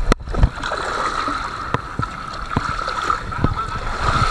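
Seawater washing and splashing over rocks at the water's edge, a steady wash broken by short splashes and knocks.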